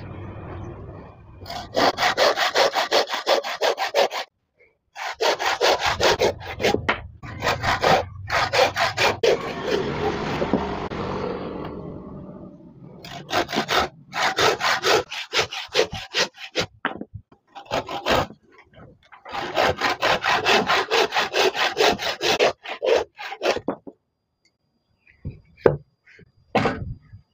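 Hand saw cutting through old, weathered scrap wood in quick back-and-forth strokes, in several runs of a few seconds each with short breaks between.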